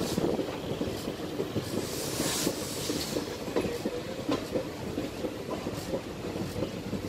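Steel wheels of a moving passenger train clattering over the rails, heard from an open coach door with wind rushing past. The rattle is dense and uneven, with a brief louder rush of hiss about two seconds in.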